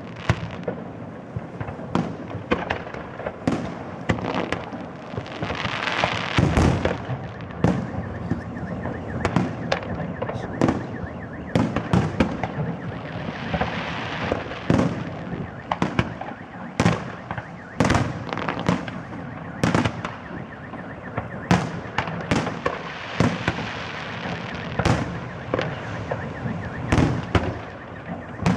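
Salute fireworks display: a continuous run of shell bursts, irregular bangs several times a second over a steady crackle, with louder spells of crackling stars now and then.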